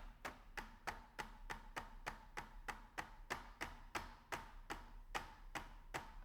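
A mallet tapping rapidly and evenly, about four light strikes a second, knocking the foot moulding onto the end of a carbon-fibre tripod leg.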